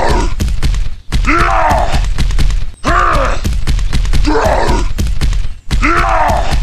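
A voice groaning and straining in long repeated heaves, each rising and falling in pitch, with brief breaks about a second in, near three seconds and near six seconds. A steady low rumble runs underneath.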